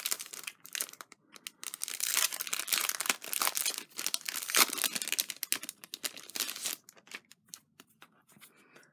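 Clear cellophane sleeve being torn open and peeled off a stack of paper card layers, a dense crinkling and crackling that is loudest in the middle and thins out near the end.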